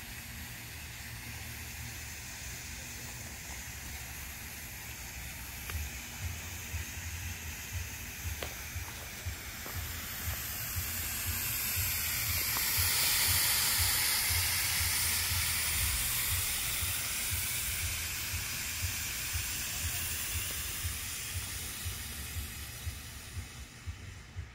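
Colored smoke fireworks hissing steadily as they burn, pouring out smoke. The hiss grows louder about halfway through and then eases off again.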